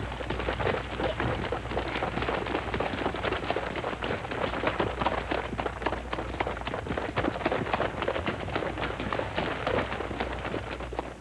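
Hurried footsteps and shuffling on wet pavement, an irregular patter of many steps over a steady low hum.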